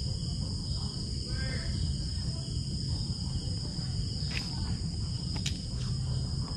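Steady insect chorus, a continuous high-pitched trilling of crickets or similar insects, over a low rumble.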